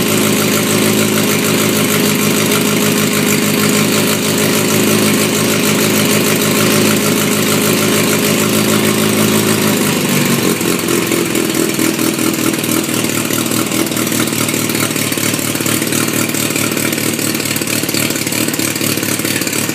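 Mini Moke's 81 hp BMC A-series four-cylinder engine running at a steady fast idle, then dropping to a lower, less even idle about halfway through.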